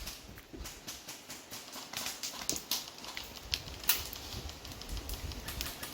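Airsoft guns firing across the field: irregular sharp pops and clicks, several a second.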